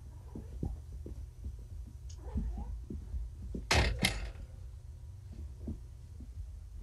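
Scattered light taps and knocks from kittens moving about on a carpeted floor, over a steady low hum. Just past halfway come two short, sharp noisy bursts about half a second apart, the loudest sounds.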